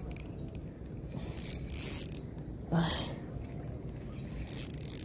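Ultralight spinning reel being cranked to bring in a freshly hooked fish. A mechanical whirr comes and goes in uneven spells.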